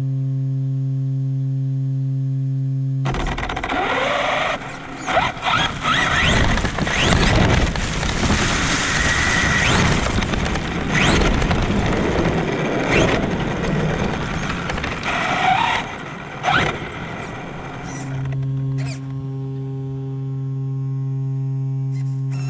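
Traxxas Sledge 6S brushless RC monster truck heard from its on-board camera. A steady hum while it sits still, then about three seconds in it drives off: motor whine rising and falling with the throttle over tyre and ground noise. Near the end it stops and the hum returns.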